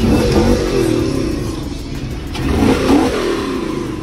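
A car engine revving twice, one rev at the start and another a little before the end, over background music.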